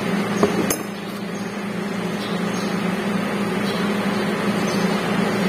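A steady mechanical hum from a machine running nearby, with one sharp click about three-quarters of a second in.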